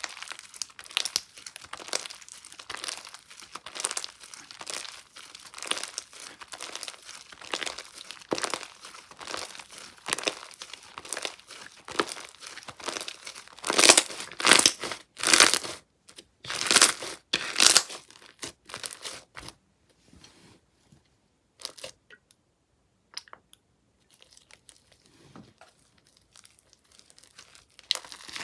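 Icicle Poke slime being squeezed and worked by hand, giving dense crackling and crunching. There are a few louder crunchy bursts about halfway through, then only sparse, quieter crackles.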